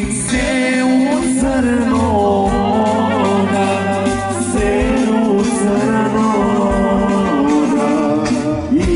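Macedonian folk song playing: a sung melody with instrumental accompaniment.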